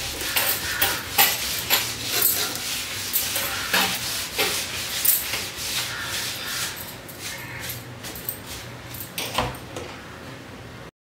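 Household objects being handled, moved and set down: irregular knocks, clatters and scraping, thinning out and fading toward the end.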